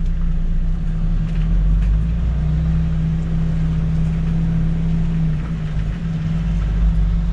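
A MAN truck's diesel engine droning inside the cab as the truck drives slowly, a steady low hum that grows a little stronger in the middle and eases off about five and a half seconds in.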